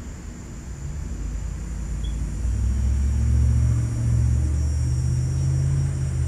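A low, steady mechanical rumble with a hum in it, growing louder over the first three seconds and then holding.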